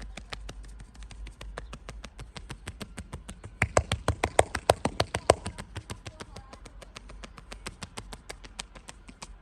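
Percussive massage: the masseur's hands strike the body in fast, even succession, about six or seven slaps a second, with a louder stretch of harder strikes in the middle.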